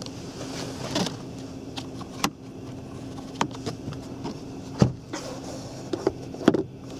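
Sharp plastic clicks and knocks of a car's interior trim being handled, a sun visor swung and a roof grab handle pulled and let go, about six in all; the loudest is just under five seconds in. A steady cabin hum runs beneath.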